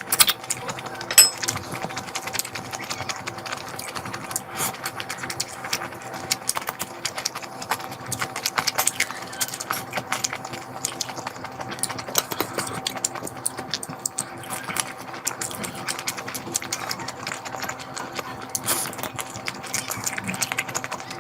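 Close-miked eating sounds: a quick irregular run of wet chewing and lip smacks from someone eating curry, over a faint steady hum.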